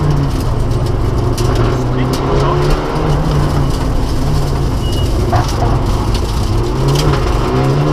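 Rally car engine under hard acceleration, heard from inside the caged cockpit, its revs climbing and dropping back several times as the driver shifts through the gears.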